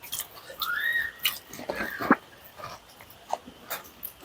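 Someone biting into and chewing crisp pani puri, with crackly crunches a second or two in. A short high squeal rises and falls just before them.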